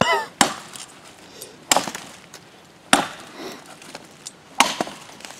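Hollow-ground stainless steel machete chopping into a firewood log: four sharp chops, a little over a second apart.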